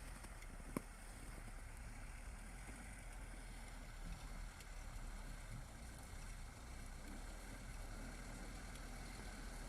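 Steady low rumble of a car on the move, with a single sharp click about a second in.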